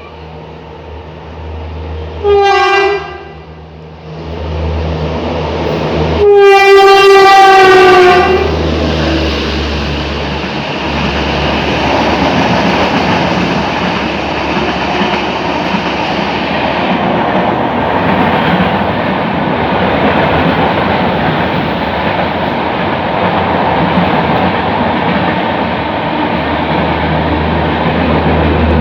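An Indian Railways electric locomotive sounds its horn twice, a short blast and then a longer one of about two seconds, the pitch dipping slightly as it approaches. Then the express train passes at speed with a steady loud rush and clatter of coaches.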